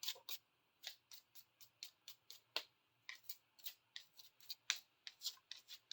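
A pair of pliers being worked open and shut by hand, giving a quick, uneven run of sharp clicks.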